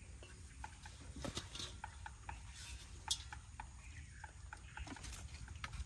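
Faint handling noises: scattered small clicks and taps as a freshly caught fish is taken off the hook and put into a bowl, with one sharper tap about three seconds in.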